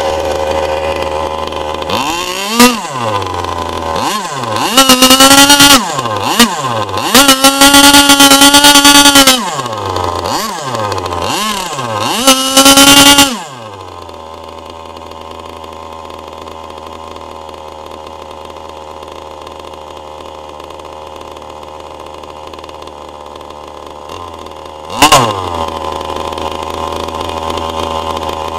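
K&B .72 two-stroke glow engine driving a Byro-Jet ducted fan, revved up and down several times to full throttle, then dropped to a steady, quieter idle about halfway through, with one short blip of throttle near the end.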